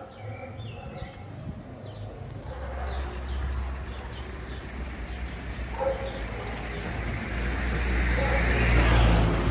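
Small birds chirping, then, after a cut, water trickling from a stone fountain spout, its splashing hiss growing louder near the end over a low steady rumble.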